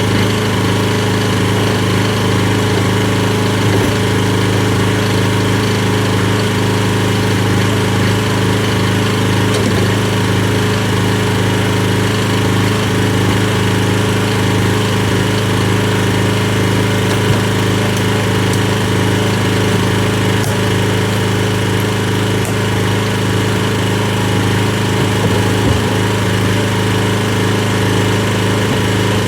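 Briggs and Stratton generator engine running steadily at constant speed, an even hum that holds its pitch throughout.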